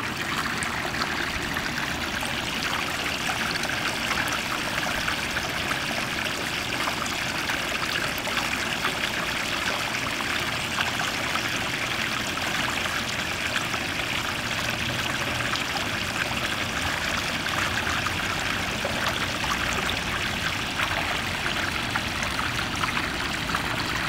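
Water falling into a garden koi pond, trickling and splashing steadily without a break.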